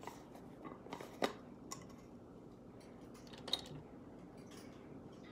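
Faint clicks and taps of a makeup container and brush being handled, with a sharper click about a second in and another about three and a half seconds in.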